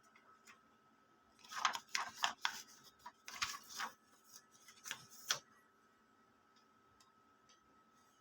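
Paper being loaded into the paper tray of an HP LaserJet Pro M501 laser printer: a run of plastic clicks, knocks and paper rustles lasting about four seconds, over a faint steady hum.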